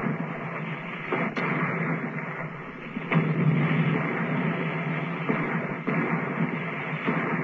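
Battle sound effects on an old TV soundtrack: a continuous noisy din of combat broken by several sharp reports of gunfire and blasts, a second or two apart.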